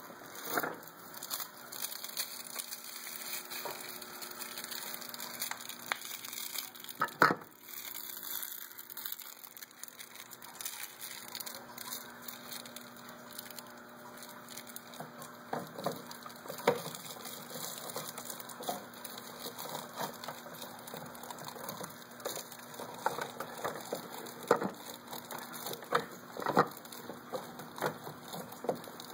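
Small plastic toy dishes and kitchen pieces knocking and clicking as a child handles them, with one loud knock about seven seconds in and a run of sharper clicks in the second half, over a faint steady hum.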